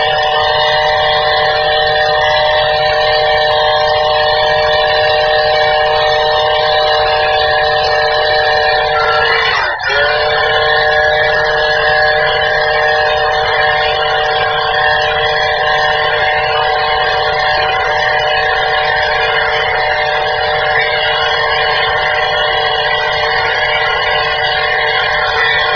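Electric angle grinder motor, converted to drive a drill or router, running at a steady high speed with a constant whine. About ten seconds in its pitch dips sharply for a moment and recovers, as if briefly loaded.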